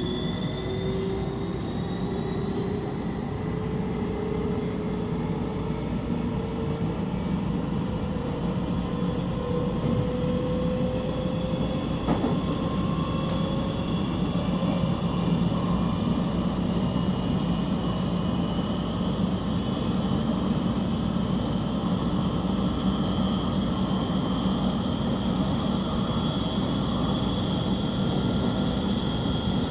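Electric stopping train running on the rails, heard from the driver's cab: a steady rumble with a thin whine from the traction drive that slowly rises in pitch. A single brief knock about twelve seconds in.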